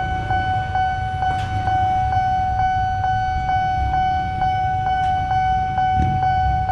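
Railway level-crossing warning bell ringing steadily, struck about two and a half times a second, signalling that a train is approaching. Underneath is the low rumble of motorcycle and vehicle engines, which grows louder near the end.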